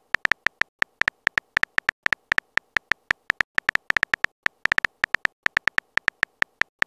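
Simulated phone keyboard clicks from a texting-story app as a message is typed letter by letter: a quick, irregular run of short clicks, about six a second.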